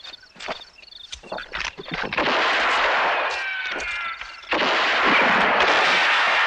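A sound-art collage of gunfire. Scattered sharp cracks give way about two seconds in to dense volleys with falling whistling tones, which dip briefly and swell loud again about four and a half seconds in.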